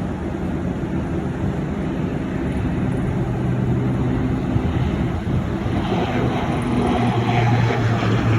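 Jet airliner engines rumbling, growing slowly louder, with a low hum that strengthens in the second half.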